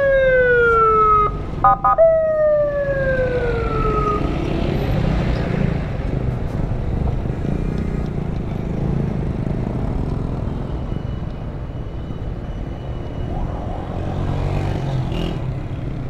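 Ambulance siren wailing in two long sweeps that fall in pitch, over the first four seconds, with a brief beep between them. After that only the steady rumble of engines and street traffic is left.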